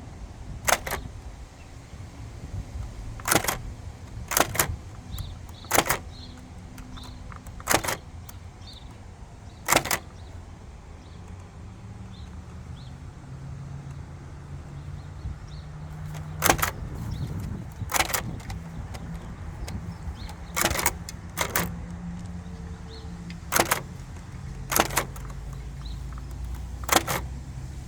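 Hammond typewriter typed slowly, one key at a time: sharp single clacks of the hammer striking the paper against the type shuttle, coming every second or two with a longer gap partway through.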